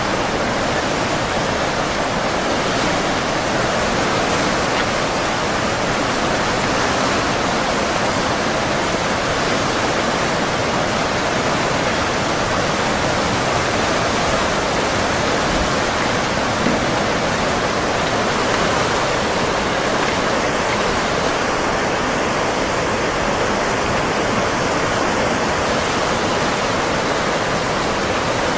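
Steady rushing noise of moving tsunami floodwater, unbroken and even in level.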